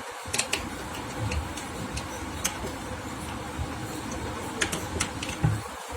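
Scattered light clicks and taps from a concealed cabinet hinge being handled and pressed back into place on its mounting, a few sharp clicks spread irregularly over a steady low background noise.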